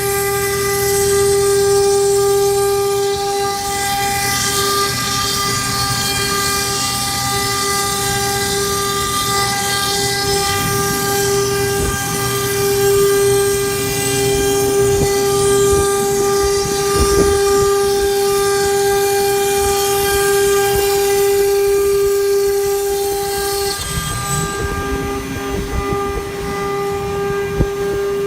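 CNC router spindle running with a steady high whine while the machine cuts, with a hiss of cutting over it. About 24 seconds in the hiss drops away and the whine breaks briefly, then carries on.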